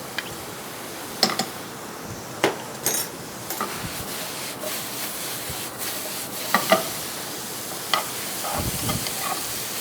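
Sliced mushrooms, ginger and spring onions sizzling in a frying pan as they are stirred, with a utensil knocking sharply against the pan several times.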